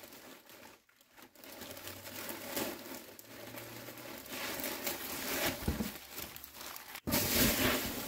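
Thin plastic bag crinkling and rustling as a grit-coated cage liner is slid out of it. After a sudden cut about seven seconds in, louder rustling of foam packing peanuts being stirred by hand.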